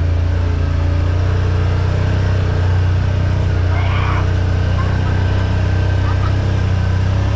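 Side-by-side UTV engine running steadily, a loud unbroken low drone with no revving.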